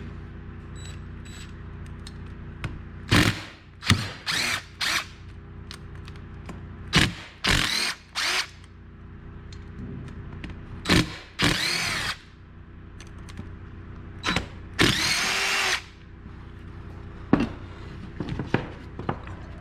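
Cordless drill-driver run in about ten short bursts, its motor whirring up and down in pitch, taking screws out of a chainsaw during a teardown. The longest runs come a little after halfway and about three quarters of the way in.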